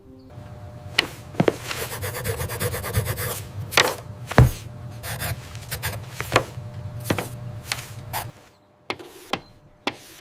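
Chalk scraping and tapping on a blackboard in short strokes, with a denser run of scratching about two to three seconds in, over a steady low hum that stops about eight seconds in.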